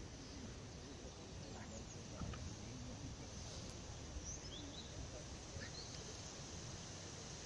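Outdoor ambience: a low, uneven rumble of wind on the microphone, with a few faint, short bird chirps about four and six seconds in.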